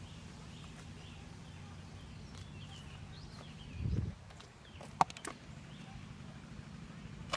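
A steady low hum with faint bird chirps over it. A dull low thump comes about four seconds in, and two sharp clicks come about five seconds in.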